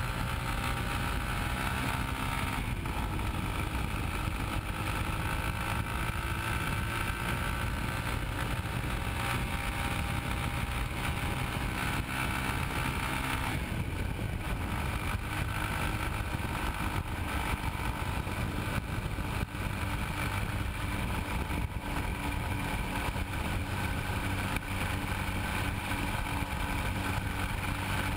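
Yamaha Ténéré 250's single-cylinder engine running at road speed, heard from low by the rear wheel over steady tyre and road noise. The engine note rises in the first few seconds as the bike accelerates, then holds steady, with an abrupt change in the note about halfway through.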